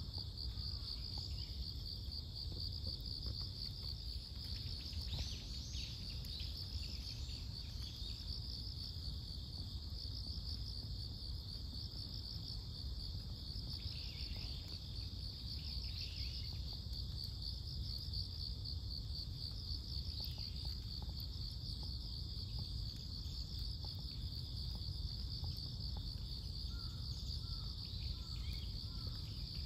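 Steady chorus of singing insects, a continuous high, finely pulsing trill, over a low background rumble.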